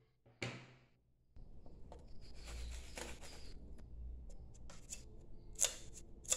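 A knock as scissors are set down on a wooden table, then a fingernail scratching and picking at the clear tape seal on the spine of a metal tea tin. Several short sharp clicks and two louder scrapes come near the end.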